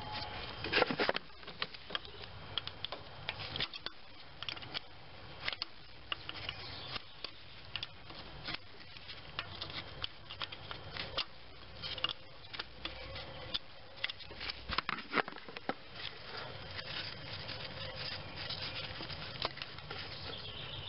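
Hand tools working the lower intake manifold bolts loose on a GM 3.4-litre V6: irregular small metal clicks and scrapes, densest about a second in.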